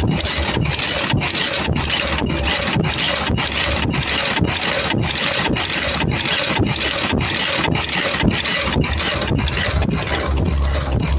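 Automatic mask earloop welding machine running its production cycle: continuous mechanical clatter and hiss with a regular beat of about two to three cycles a second as it feeds the masks and welds on the earloops.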